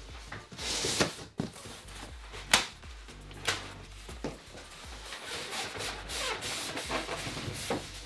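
Cardboard box flaps and packaging being handled: a continuous rubbing and rustling of cardboard with a few sharp knocks as the box is pulled open and reached into.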